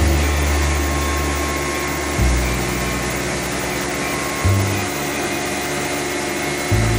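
Steady whirring of a small electric atta chakki flour mill grinding grain, under background music whose low notes change about every two seconds.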